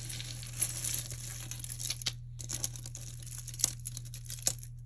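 Crinkling and rustling of packing material as a box of mixed jewelry is rummaged through by hand, with many small clicks and taps.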